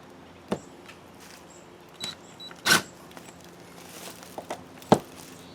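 Scattered clicks and knocks of hand work on faucet escutcheon screws, with one louder, longer burst nearly three seconds in and a sharp knock near the end. The screw is not biting in the wood behind it.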